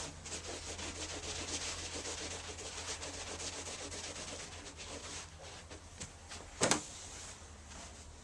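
Steady scratchy rubbing and scuffing for about five seconds, then a single sharp knock, and quieter after it.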